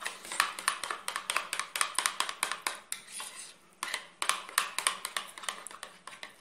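A metal spoon stirring melted butter and cream in a bowl, clinking quickly and repeatedly against the bowl's sides, with a brief pause about three seconds in.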